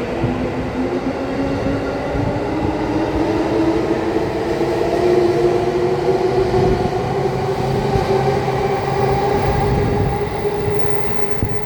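JR East E233-5000 series electric train heard from inside the car, its traction motors whining in a steadily rising pitch as it gathers speed, over the rumble of the wheels on the rails.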